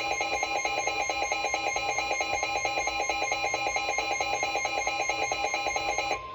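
Weather radio alarm beeping rapidly and loudly over the steady 1050 Hz NOAA Weather Radio warning tone, signalling an incoming severe thunderstorm warning. The beeping cuts off near the end, leaving the steady tone alone.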